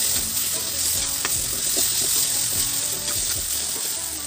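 Onion-tomato masala with ground spices sizzling in hot oil in a wok, stirred and scraped with a perforated steel ladle, with a few sharp scrapes of metal on the pan.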